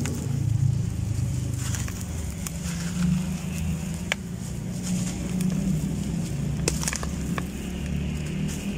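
Dry, gritty crumbly blocks being crushed by hand, with powder and grit pouring and sifting down onto a wet heap in a basin. Scattered sharp crackles sound over a steady low rumble.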